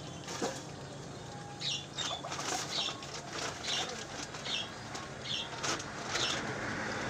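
A small bird chirping over and over, one short falling chirp about once a second, starting about two seconds in, with light rustling and clicks underneath.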